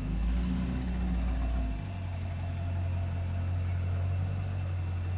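Vehicle engine running steadily, a low hum whose pitch shifts about two seconds in.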